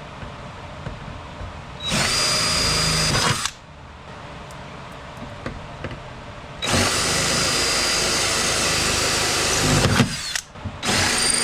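Power drill drilling out the rivets that hold a Mercedes-Benz GLK 350 power window regulator in the door, in three runs: a short one about two seconds in, a longer one of about four seconds from the middle, and another starting near the end. Each run opens with a whine that climbs quickly to a steady pitch.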